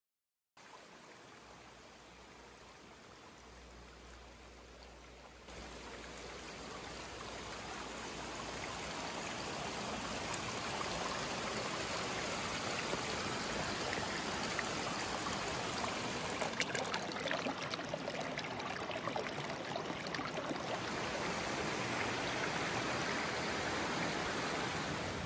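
Mountain stream water running over rocks: a steady rush that starts about half a second in and grows louder over the first ten seconds.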